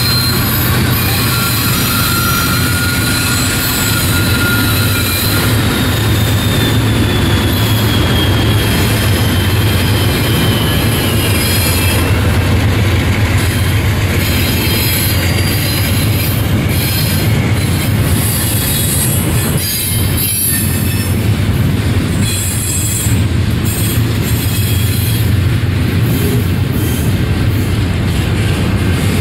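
Freight train passing close by: the last of its Norfolk Southern GE diesel locomotives go past, then intermodal cars roll by with a steady rumble of wheels on rail. Thin high wheel squeals run over it, one sliding slowly down in pitch during the first several seconds.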